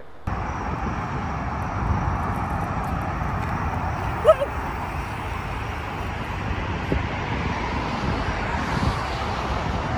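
Steady outdoor background rumble and hiss, heaviest in the low end, with one short chirp a little past four seconds in.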